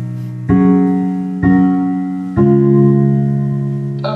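A song played through an amplifier and loudspeaker with a two-way crossover's level switch set to 3 dB: sustained keyboard chords, a new chord struck about once a second.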